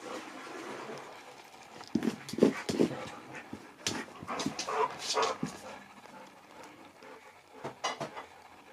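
A husky panting and snuffling as he noses at a chocolate Easter egg. Clusters of short, sharp snuffs and knocks come about two seconds in and again around the middle, with one more near the end.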